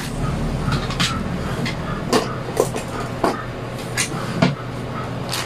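Plastic courier mailer bag crinkling in several short, sharp crackles as a hand presses and smooths it on a table, over a steady low background hum.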